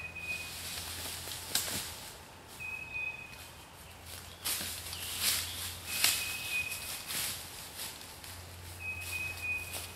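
Footsteps through dry leaf litter on the forest floor, with a bird's short, even whistled note repeating about every three seconds.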